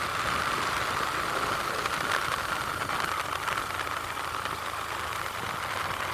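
Motorcycle running steadily as it rides along a road, a continuous even engine and road noise.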